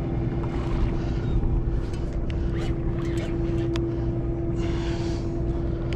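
A sportfishing boat's machinery running with a steady hum and a low rumble. A few sharp clicks come in the second half.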